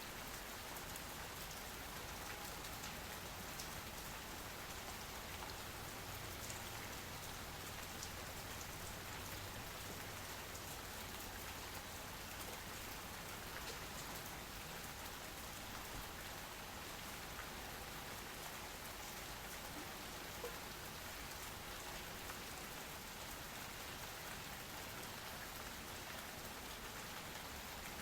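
Steady soft rain falling, an even hiss with scattered drops ticking through it. One slightly louder drip comes about two-thirds of the way through.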